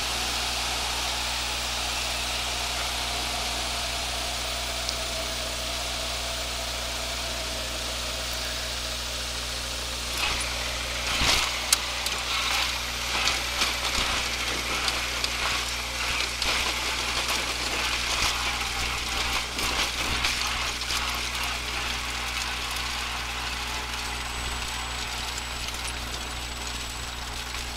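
Cabin noise of a Piper PA-22/20-135 Pacer: the engine and propeller run steadily at low power over rushing air. About eleven seconds in, the plane touches down on a grass strip with a sharp bump, then comes an irregular rattling and knocking as the landing gear rolls over rough ground.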